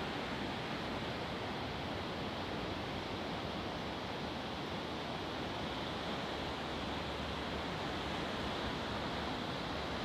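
Ocean surf breaking along the shore, heard as a steady wash with no single wave standing out.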